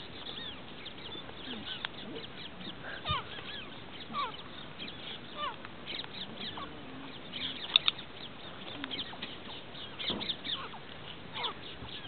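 Birds calling: a scatter of short, high whistled chirps and trills, with a denser, louder cluster about eight seconds in and again near ten seconds.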